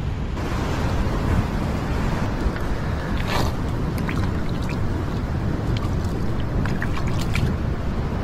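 Wind rumbling on the microphone over the wash of surf on a rock shelf, with a brief hiss about three seconds in and a few light ticks after it.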